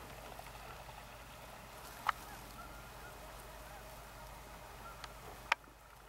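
Faint chorus of waterfowl calling in the distance, geese honking and ducks, as many short overlapping calls. Two sharp clicks stand out, one about two seconds in and a louder one near the end.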